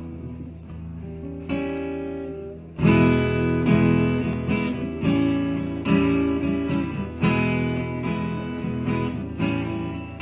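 Acoustic guitar playing an intro: a soft opening, then from about three seconds in, chords strummed and left to ring, a new chord roughly every second.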